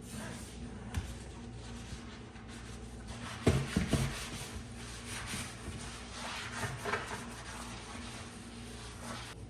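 Rubbing and scraping of household handling, with a sharp knock about a second in, a cluster of loud knocks about three and a half seconds in, and a few lighter knocks near seven seconds, over a steady low hum.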